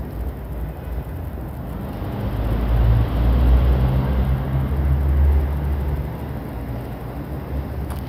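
Low outdoor rumble coming in through an open window, swelling for a few seconds in the middle.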